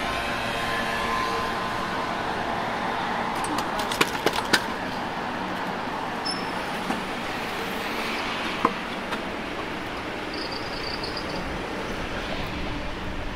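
City street traffic: vehicles passing steadily on a busy ring road, with a few sharp clicks about four seconds in and another near nine seconds.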